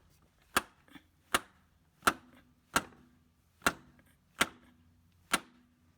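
Steady series of about seven sharp blows, roughly one every three-quarters of a second, each with a brief metallic ring, pounding the inner splined end of a new CV axle into the transmission to seat it and lock its retaining ring.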